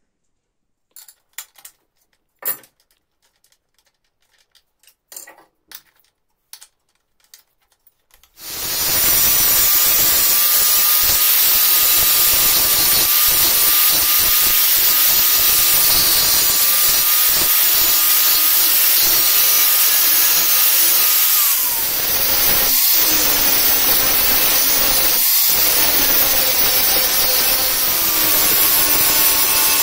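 A few light knocks and clicks, then about eight seconds in an angle grinder starts up and grinds a stainless steel knife blank, a loud steady grinding with a held whine. The whine drops in pitch briefly about three quarters of the way through as the load changes, then comes back.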